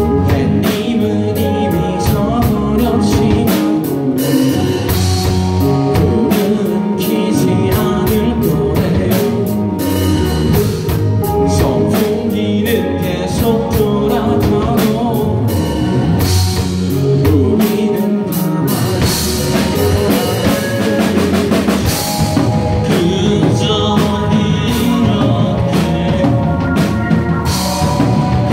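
Rock band playing live, with two electric guitars, an electric bass and a drum kit, and sung vocals.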